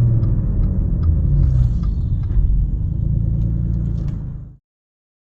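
Straight-piped Audi S4 exhaust running loud and low-pitched at fairly steady revs, with faint scattered ticks. It cuts off suddenly about four and a half seconds in.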